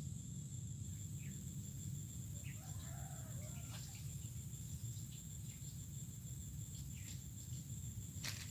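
Outdoor ambience: a steady high-pitched insect drone, with a bird calling briefly about three seconds in, a few short chirps scattered through, and a sharp tick near the end.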